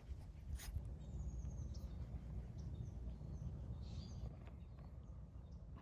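Faint outdoor ambience: a bird chirping a few short, high notes over a low steady rumble, with a light click about half a second in.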